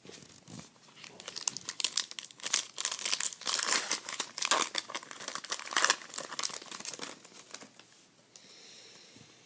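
Trading-card pack wrapper being torn open and crinkled, a dense crackling for about six seconds that then dies away.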